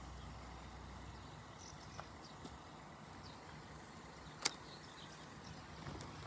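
Quiet outdoor ambience: a steady high-pitched hiss with a few faint short chirps over it. There is a small click about two seconds in and a sharper, louder click about four and a half seconds in.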